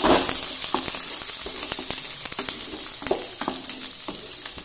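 Chopped onion, garlic and green chillies sizzling in hot oil with a cumin and mustard-seed tempering in a non-stick kadai. A wooden spatula stirs them, scraping and knocking against the pan. The sizzle grows gradually quieter.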